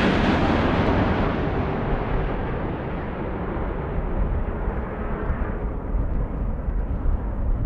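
Jet airliner's engine noise fading away after it passes close by, the high end dying off steadily, over gusty wind rumbling on the microphone.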